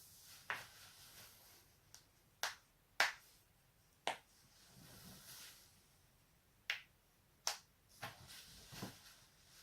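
Spinal joints being cracked: a string of sharp, separate pops at irregular gaps, about half a dozen loud ones with the loudest about three seconds in, then a few softer clicks near the end.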